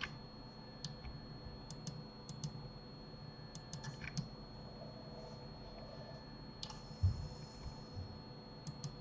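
Scattered clicks of a computer mouse and keyboard, some in quick clusters of two or three, with a dull knock about seven seconds in, over a faint steady hum.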